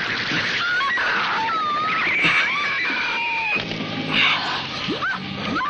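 A woman screaming in terror: a string of short rising and falling shrieks, with one long held scream about two seconds in, over a steady hiss.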